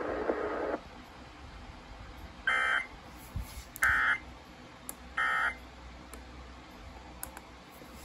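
Midland weather radio's audio cuts off under a second in, followed by three short key beeps about 1.3 seconds apart as its buttons are pressed.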